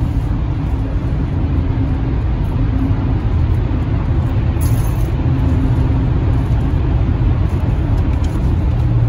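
Steady road and engine noise of a car driving through a highway tunnel, heard from inside the cabin as a low, even drone.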